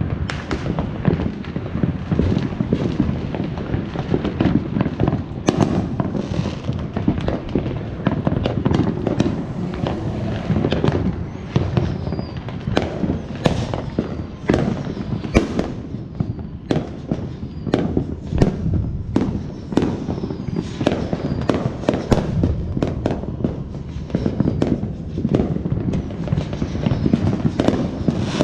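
Consumer fireworks going off in quick succession: many sharp bangs and pops, overlapping, over a low rumble. A few short whistles come in about halfway through.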